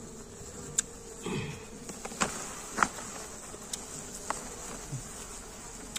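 Honeybees buzzing around broken-out comb, one passing close with a falling pitch about a second in. Several sharp clicks and rustles come from the comb being handled on a plastic sack.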